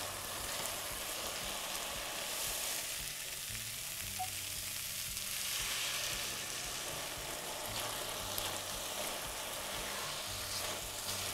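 Diced vegetables and tomato paste sizzling in a hot pot as red wine is poured in to deglaze and boil off, with a spatula stirring through them. The sizzle swells about halfway through as more wine hits the pan.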